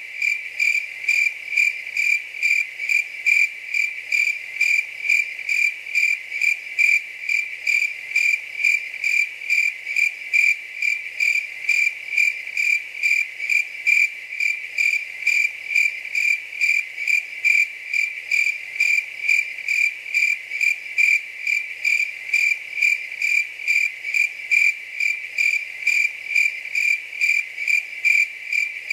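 A cricket chirping steadily on one high note, in an even rhythm of about two chirps a second.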